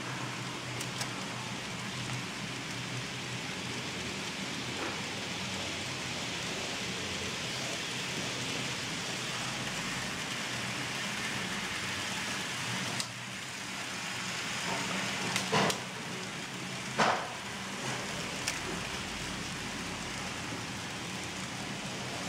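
N-scale model trains running on the layout: a steady rattle of small wheels rolling on track over a low hum, with a few sharp clicks about two-thirds of the way through.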